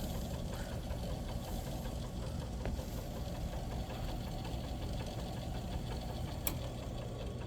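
Leslie 147A rotary speaker cabinet running with an unwanted steady, rapid ticking and scratching noise from the bottom of the cabinet, a sign of a mechanical fault there. A single sharp click sounds about six and a half seconds in.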